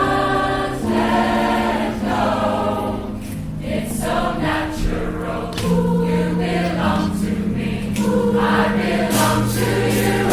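Male vocal group singing in close harmony, several voices holding chords that change every second or so under a lead voice, with no clear words.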